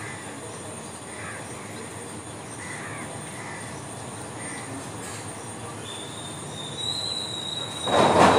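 Steady outdoor background noise with faint short calls, a thin high squeal starting about six seconds in, and a loud rushing burst right at the end.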